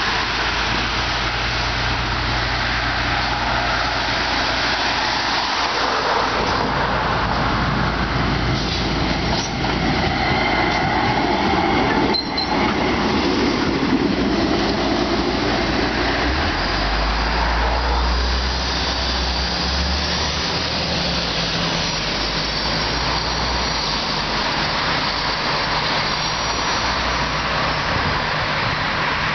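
A tram rolling close past on its street track, with steady wheel and running noise. A sharp click comes about twelve seconds in, and a deep rumble from the motors and wheels follows from about sixteen seconds as it pulls away. Faint high wheel squeal comes in the later part.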